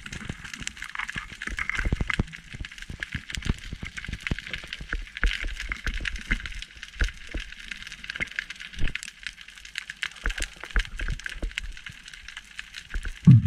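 Underwater ambience picked up by a diver's camera: a dense, continuous crackle of small clicks, with irregular low thuds from the diver's own movement.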